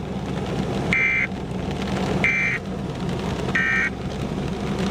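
Three short, identical warbling data bursts, about a second apart: the Emergency Alert System end-of-message tones that close a broadcast tornado warning. A steady low hum runs underneath.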